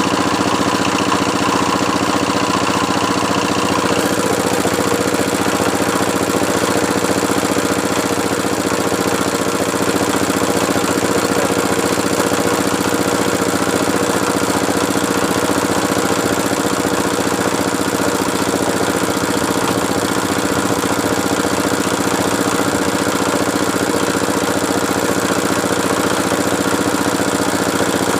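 Engine of a water-well drilling machine running steadily, with a higher tone dropping out about four seconds in.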